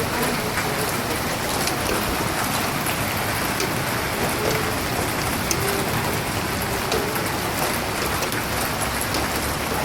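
Heavy rain pouring down steadily, with many small sharp impacts of drops striking surfaces.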